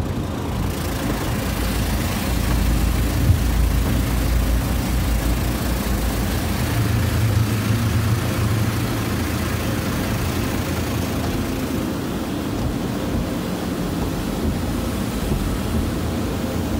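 Automatic car wash heard from inside the car: water and soap spraying against the windows and body over a steady low rumble of the wash machinery, the rumble heaviest in the first half and easing after about ten seconds.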